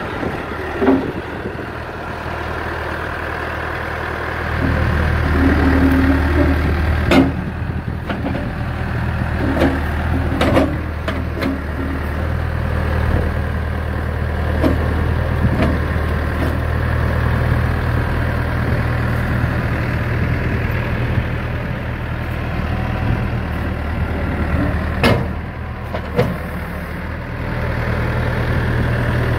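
Diesel engine of a Cat 416D backhoe loader running steadily at idle, its hum growing louder and softer a few times, with a few sharp clanks.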